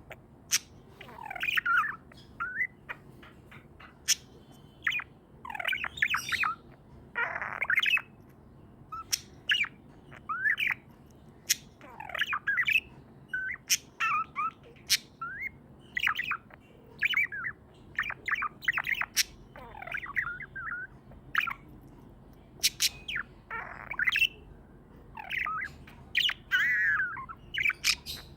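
Budgerigar chirping and squawking in short, irregular bursts of warbles and sharp clicks.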